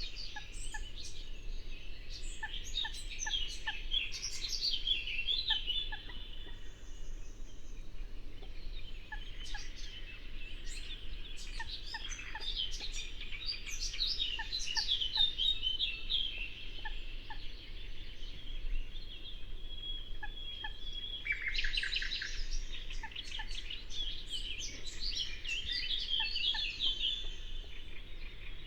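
Several songbirds singing at once, with rapid trills and chattering phrases coming in waves, over a low steady rush of flowing river water.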